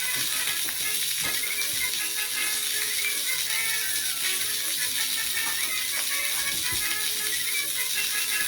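Music from a silent-film style sketch, with a continuous mechanical clicking rattle and steady hiss over it.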